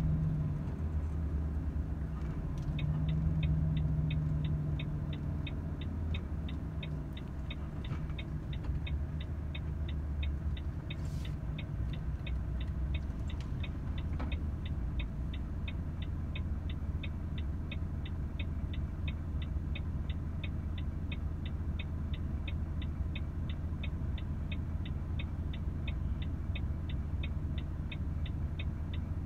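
Volvo FH 500 truck's 13-litre straight-six diesel engine running at steady low revs, heard from inside the cab. From about three seconds in a fast, regular ticking joins it, about three clicks a second.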